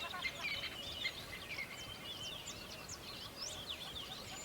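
Birds chirping and whistling: many short, quick calls overlapping in a continuous chorus, over a soft steady background hiss.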